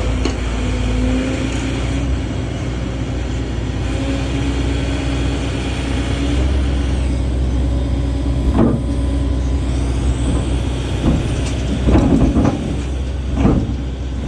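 Heavy-equipment diesel engine idling steadily, with a few sharp metal clanks and knocks in the second half as parts are worked loose.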